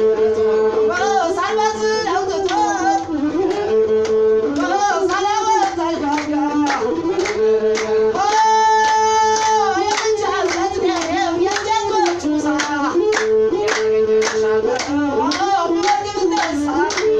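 Ethiopian azmari music: a masinko, the one-string bowed fiddle, plays a gliding melody over repeating lower notes, with a steady percussive beat.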